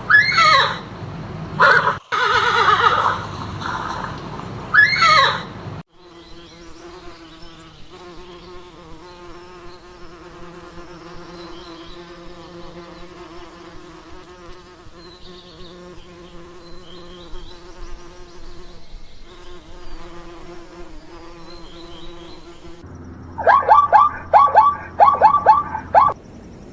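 A horse whinnying, then from about six seconds in a bee's steady buzz lasting some seventeen seconds. Near the end, a quick run of about eight short, loud, falling calls.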